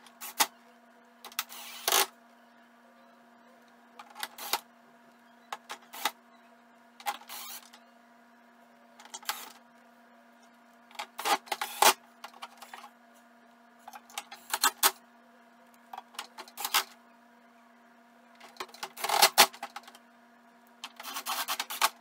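Cordless drill driving screws back into the plastic outer shell of a portable air conditioner, running in short bursts every second or two with pauses between.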